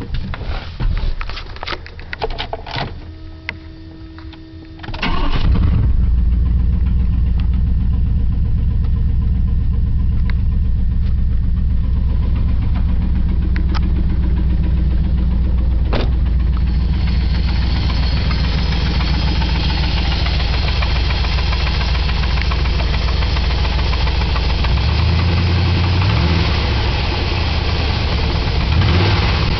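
Clicks and a short steady tone, then the Chevy Vortec 350 (5.7 L) V8 starts about five seconds in and runs steadily at idle. A hiss joins it about halfway through. The owner suspects a connecting rod knock in this high-mileage engine.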